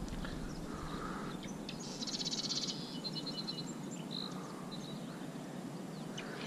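An animal's rapid, high trill about two seconds in, then a shorter one just after, over faint steady background noise.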